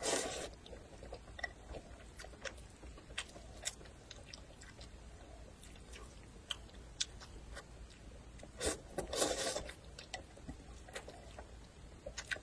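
A person slurping noodles from a bowl, once at the start and again for about a second near nine seconds in, with chewing and scattered small clicks in between.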